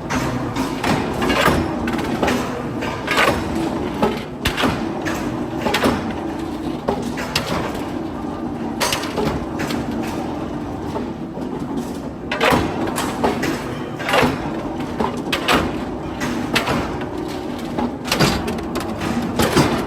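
Irregular metal knocks and clanks, several a second at times, each ringing briefly, over a steady machine hum.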